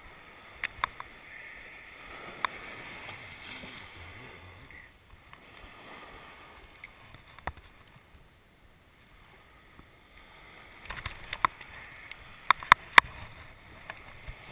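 Surf washing on the beach as a steady rush, with sharp clicks and knocks of handling, a cluster of louder ones near the end.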